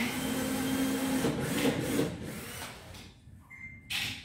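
Cordless drill-driver running for nearly three seconds while driving a screw, its pitch steady at first and then wavering as it slows. A sharp knock follows near the end as the drill is set down on the concrete floor.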